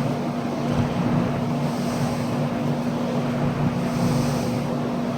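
Vintage International electric box window fan running on low speed: a steady motor hum under an even rush of air from the blades.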